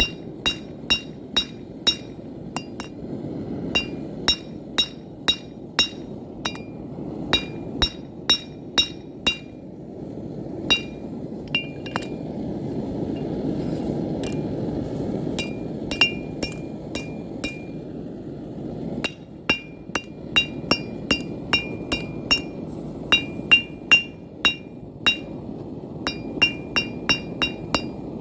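Hand hammer striking hot steel on an anvil in runs of about two to three blows a second, each blow with a bright metallic ring. The runs pause for several seconds in the middle, with only a few scattered strikes. A steady low rush continues underneath.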